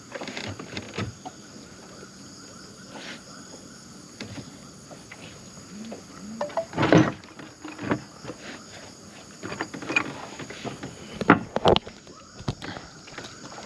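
Scattered knocks and thumps, loudest about seven seconds in and again around eleven seconds, over a steady high insect chorus.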